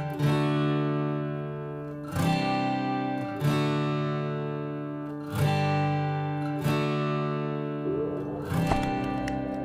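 Background music: an acoustic guitar strumming chords, about six strokes, each ringing out before the next. A rising rush of noise comes in near the end.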